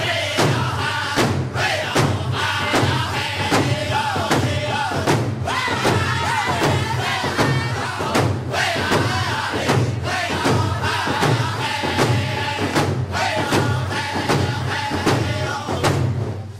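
Background music with a steady, pulsing bass beat and melody lines over it.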